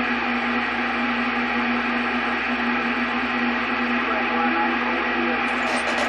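CB radio speaker giving out a steady hiss of static with a low, steady hum tone running through it, like an open carrier on the channel.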